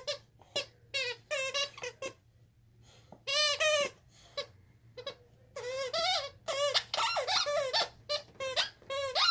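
The squeaker in a dog toy squeaking again and again as a dog bites down on it. The squeaks are short and come in quick clusters, with a longer squeak a little after three seconds and a fast run of squeaks from about five and a half to seven and a half seconds.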